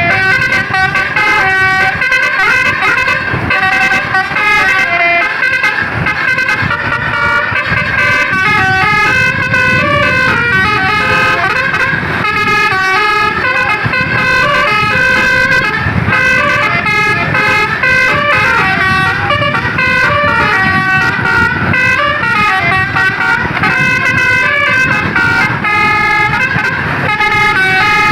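Indonesian bus 'telolet basuri' multi-trumpet air horn playing a continuous tune of quick stepping notes, over a steady low rumble.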